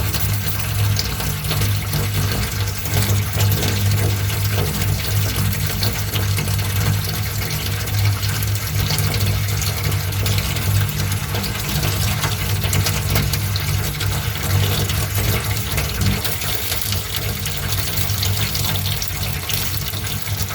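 Layered fire-and-water sound effect: a steady rush of water over a low rumble, with scattered crackles.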